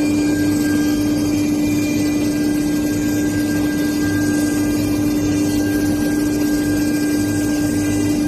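CNC router spindle running at a constant speed as it carves carbon fiber: a steady, unchanging tone under a continuous rough cutting noise.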